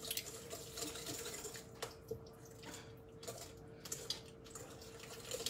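Wire whisk stirring egg yolks, coconut oil and softened butter in a glass bowl: soft, wet, irregular swishing with a few light taps of the wires against the glass.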